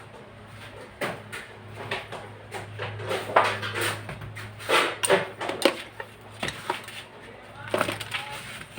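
Irregular knocks and clatter of hard objects being handled, over a faint steady low hum.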